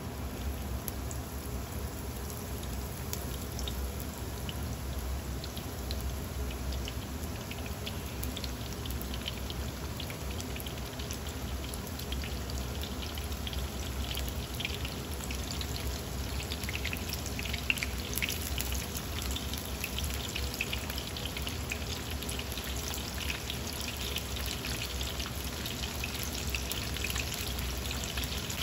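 Cornstarch-coated pork pieces deep-frying in hot oil in a wok: a steady sizzle with dense crackling that grows busier in the second half, with one sharper pop a little past halfway.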